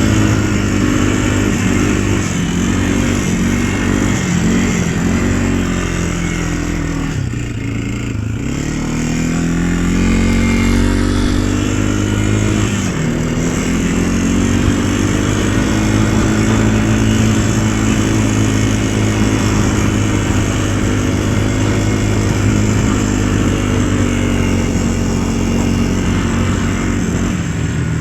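Engine of a vehicle running steadily under way, its pitch dropping and climbing back again three times as it slows and picks up speed.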